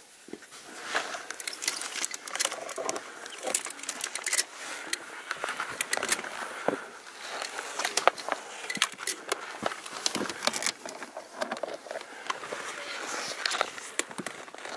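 A climber hauling up a fixed steel chain on rock: irregular clinks and knocks of the chain links and scrapes of gloved hands and boots on stone, over steady rustling.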